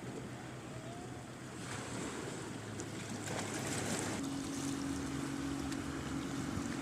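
Sea waves washing on the shore, with wind buffeting the microphone. About four seconds in, a steady low engine hum starts up and holds.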